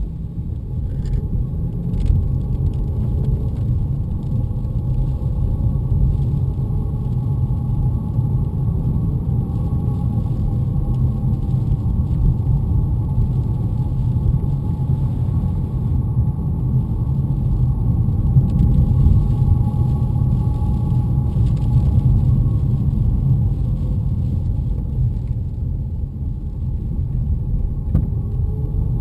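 BMW E90 on the move in gear: steady low road-and-drivetrain rumble, with a thin high-pitched whistling whine held over it that wavers slightly in pitch. The whine is an undiagnosed fault noise that appears whenever the car moves in gear.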